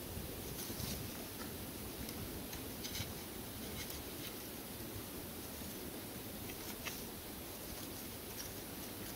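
Split wooden kindling sticks being laid by hand into a small crisscross stack, giving a few light wooden clicks and soft scraping over a steady hiss.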